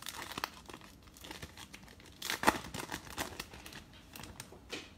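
Crinkly wrapper of a 2020 Bowman baseball card pack being torn open and crumpled in the hands. It makes irregular crackles, the loudest about halfway through.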